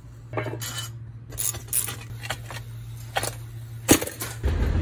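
Metallic clinks and taps of hand tools and the muffler as the muffler is unbolted and lifted off a Pioneer P41 chainsaw. There are about half a dozen separate clinks, and the sharpest comes about four seconds in.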